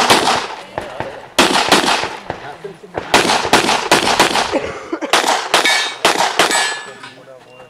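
Pistol fired in rapid strings of shots, several quick shots in each string, with short pauses between the strings as the shooter moves between positions on a practical shooting stage.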